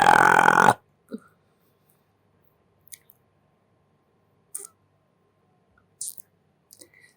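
The loud tail of a long human burp, cutting off under a second in, followed by a few short, faint mouth clicks spaced a second or two apart.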